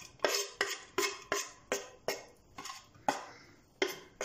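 Knife blade scraping chopped onion off a wooden cutting board into a glass dish: a string of sharp knocks and scrapes, about two or three a second.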